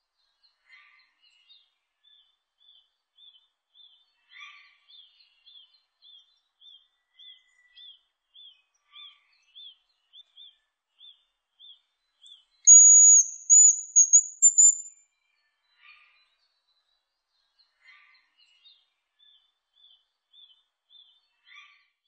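Hazel grouse singing: one high, thin whistled phrase of about two seconds, broken into several notes, a little past the middle. Behind it another bird repeats a faint short note about twice a second.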